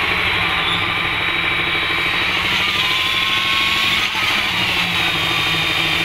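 Engine of construction machinery running steadily at constant speed during a concrete slab pour: an even drone with a low note and rapid, regular pulsing.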